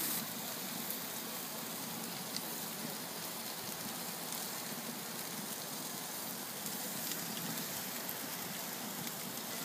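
Ribeye steaks sizzling on a grill grate over an open fire: a steady hiss with a few faint scattered crackles.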